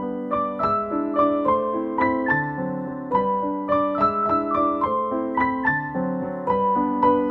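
Background keyboard music: a gentle piano melody of evenly spaced notes, about three a second.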